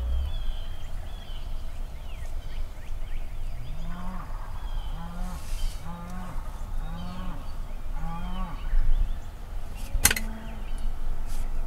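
Wild turkey calling: a run of five low, evenly spaced notes about a second apart, over faint songbird chirps. A single sharp click sounds near the end.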